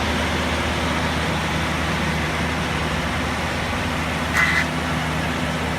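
Sawmill machinery and its engine running steadily, with a brief high squeal about four seconds in.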